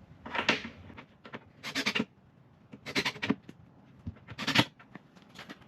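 Power drill driving screws through a metal bracket into the cabinet's plywood, in four short bursts of about half a second each.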